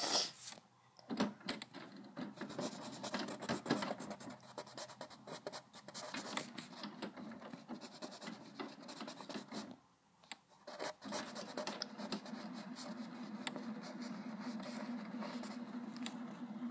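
Pencil lead scratching on paper in quick, short sketching strokes, with a pause of about a second about two-thirds of the way through. After the pause a steady low hum runs under the scratching.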